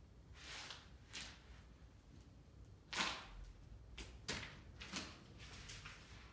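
Sneakers stepping and sliding through thick white paint on a board: a series of short scuffs, the loudest about three seconds in.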